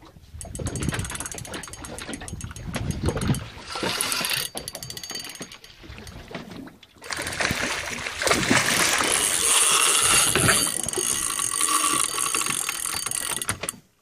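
Shimano Biomaster 10000SW spinning reel clicking as it winds a hooked shark in on a heavy rod. About seven seconds in, loud splashing takes over as the shark thrashes at the surface beside the boat.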